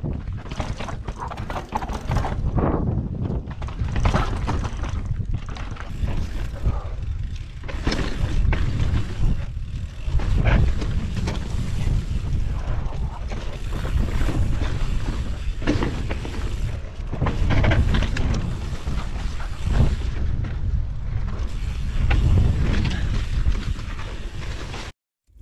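Action-camera audio from a mountain bike riding down rough trail: a steady wind rumble on the microphone, with irregular rattling and clatter from the bike over the ground.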